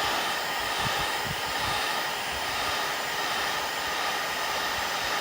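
Electric hot-air blower running steadily, heating black ABS plastic door handle covers to take the whitening out of their edges.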